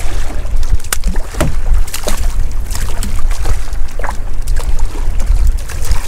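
Small boat at sea: a heavy, steady low rumble of wind on the microphone, broken by irregular sharp knocks and short slaps.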